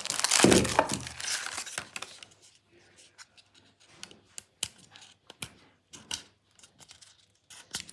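Plastic packaging rustling and crinkling as a beard trimmer is handled, with a dull thump about half a second in. After about two seconds it gives way to scattered light clicks and taps of the plastic unit being handled.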